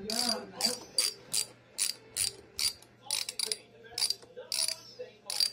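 Socket wrench ratchet clicking in quick, uneven strokes, about two or three clicks a second, as it turns a gear puller's forcing screw to draw a stuck wheel off a wheelchair motor shaft.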